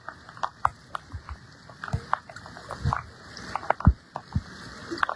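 Floodwater splashing and sloshing, with scattered sharp taps and a few low thumps about a second apart over a steady hiss. The loudest thump comes near the end.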